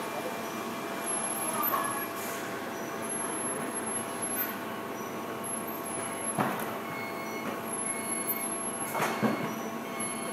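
Factory assembly-floor noise: a steady hum of machinery with faint steady tones. Short hisses and knocks come about two seconds in, about six and a half seconds in, and near nine seconds in.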